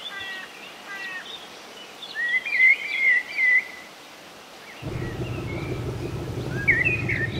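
Songbirds chirping, with a longer warbling phrase about two seconds in. About five seconds in, the low, steady drone of a passing river barge's engine starts under the birdsong.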